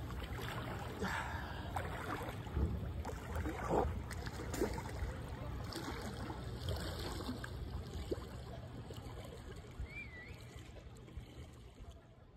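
Sea water splashing as a swimmer strokes through it, the splashes most frequent in the first few seconds and growing fainter as he swims away, over a steady low rumble.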